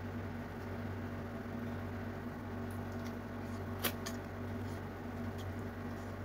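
Faint mouth sounds of someone eating fish by hand, with a few soft clicks and one sharp smack just before four seconds in as a bite goes into the mouth, over a steady low hum in the room.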